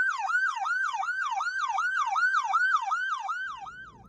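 Electronic emergency siren in a fast yelp, sweeping up and down about three to four times a second, dying away near the end.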